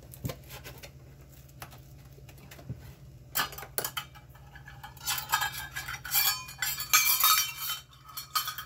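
Stainless steel measuring cups clinking and clattering against each other as they are picked up and handled. A few scattered clicks come first, and the clatter is densest in the last few seconds.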